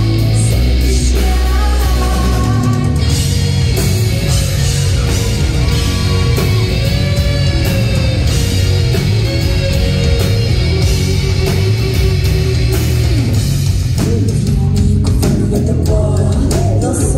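Live rock band playing loudly: electric guitars, bass guitar and drum kit, with a woman singing lead.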